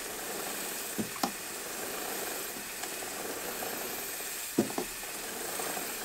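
Aerosol synthetic chain lube spraying in a steady hiss onto a motorcycle drive chain's links as the rear wheel is turned, with a few light clicks about a second in and again about four and a half seconds in.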